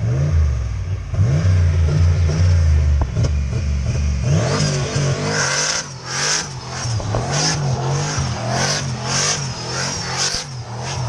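Turbocharged V8 in a Fox-body Ford Mustang revving up and down over and over as the car spins donuts. From about halfway through, the tires screech and hiss in repeated bursts as the rear wheels spin and smoke.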